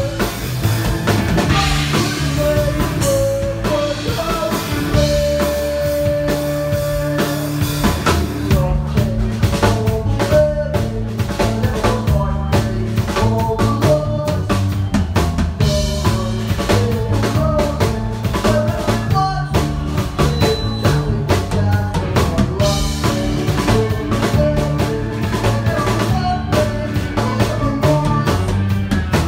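Live rock band playing, with upright bass, electric guitar, keyboard and a drum kit. The drumming becomes dense and busy about eight seconds in, with snare and bass-drum hits over a steady bass line.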